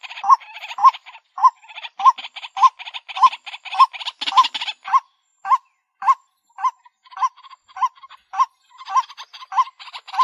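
White-breasted waterhen call, played as a lure: a short note repeated about twice a second over a rapid, chattering rattle. The rattle thins out in the middle, leaving mostly the repeated notes, and picks up again near the end.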